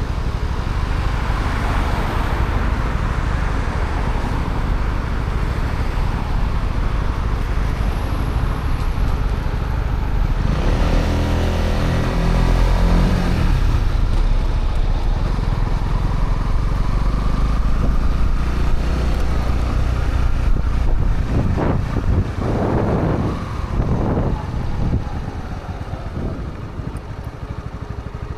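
A Honda CB125R's single-cylinder 125 cc engine running through its stock exhaust while being ridden, under a heavy low wind rumble. A few seconds before the end the engine note rises and falls several times, then the sound grows quieter.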